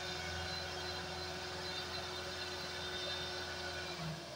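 Massey Ferguson 385 tractor's diesel engine running steadily at a constant pitch while pulling a heavily loaded sugarcane trolley.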